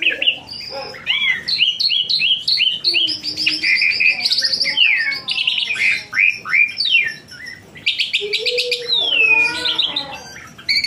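Songbird singing: a fast, unbroken run of varied chirps, sweeping notes and rapid trills, with a long falling whistle near the end.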